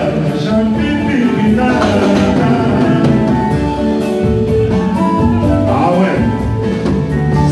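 Live Congolese rumba band playing loudly, electric guitars over a steady beat, with singing over the top.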